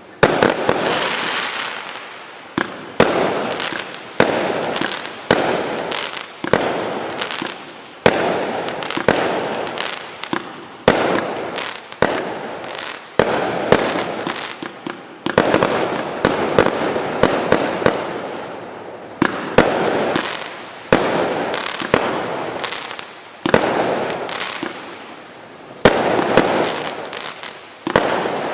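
A multi-shot consumer firework cake, a 249-shot battery of 0.8-inch tubes, firing continuously. It gives a sharp bang about once a second, with crackling effects between the bangs.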